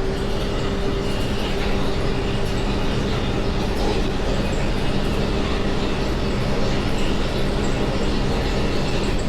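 Off-road vehicle's engine running at a steady speed, a constant even drone, with rumble and rattle from the drivetrain and rough trail.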